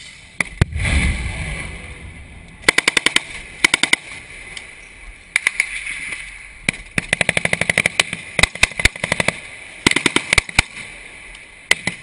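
Bursts of automatic weapons fire in a firefight: rapid strings of sharp cracks, several bursts in a row with short gaps between them. A loud low rumble comes about a second in, before the first burst.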